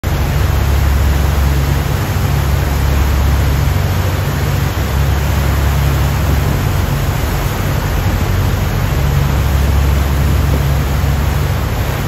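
Steady loud rush of wind and water heard from a boat on the river, with a heavy low rumble of wind buffeting the microphone that swells and eases.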